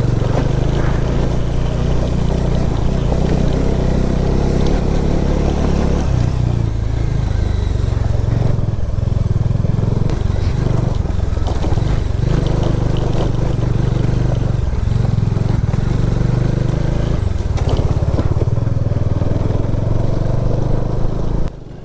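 Motorcycle engine running under way, with the pitch dropping and picking up a couple of times as the rider changes speed, over rushing noise. Cuts off suddenly near the end.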